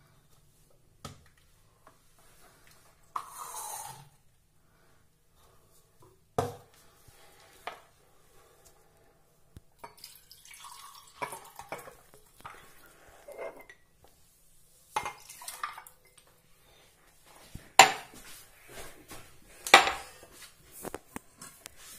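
Milk poured from a jug over ice into glass mugs, among scattered clinks and knocks of glassware being handled and set down on a countertop. Two sharp knocks near the end are the loudest sounds.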